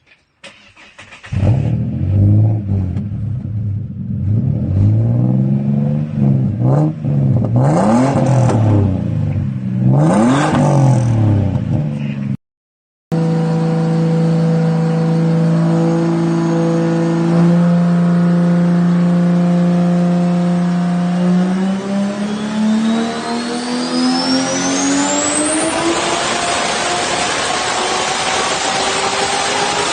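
Turbocharged Ford Barra 4.0-litre straight-six engine being revved, several quick rises and falls in pitch. After a cut it holds a steady speed, then pulls up smoothly through the revs near the end, with a thin whistle sweeping up high above it as the turbo spools.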